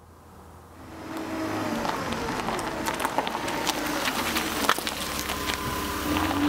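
A motor vehicle running, fading in over the first second and a half and then holding steady, with faint scattered clicks.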